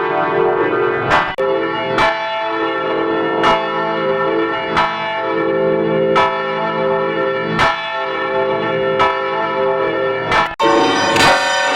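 Church bells ringing, with a fresh strike about every one and a half seconds over the long, overlapping ring of earlier strokes. It cuts abruptly to a different bell recording shortly after the start and again near the end.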